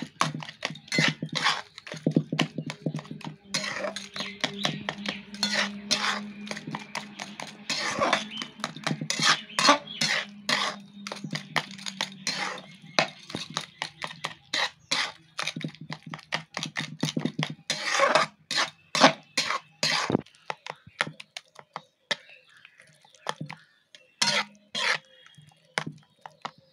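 A slotted metal spatula scrapes and taps against a metal kadai (wok) in quick repeated strokes, mashing and mixing a thick, wet mixture of grated paneer, milk powder and milk. The strokes thin out near the end.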